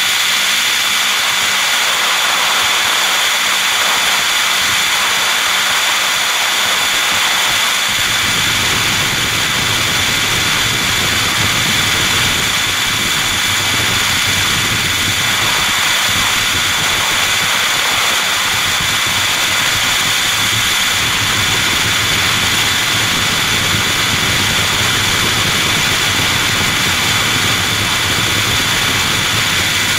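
Radio-controlled helicopter running in flight, heard from the camera mounted on it: a steady high whine of its motor over the rush of its rotors, with a deeper rumble coming in about eight seconds in.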